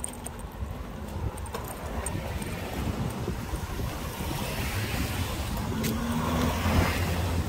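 A car approaching and passing close by, its engine and tyre noise building to a peak near the end.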